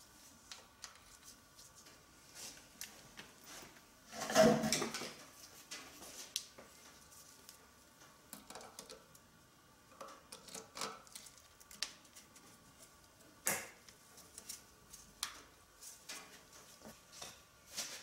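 Pliers working spring-type coolant hose clamps in an engine bay: scattered light metallic clicks and knocks, with a louder scraping rustle about four seconds in and a sharp click about halfway through, over a faint steady hum.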